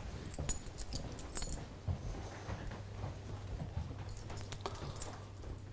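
Footsteps with light clicks and knocks for the first second and a half, then a steady low hum while waiting at a lift aboard a ship.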